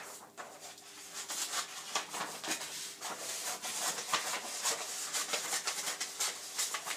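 Paper rustling and crinkling as a roll of white paper is unrolled and handled on a kitchen counter, with scattered small knocks.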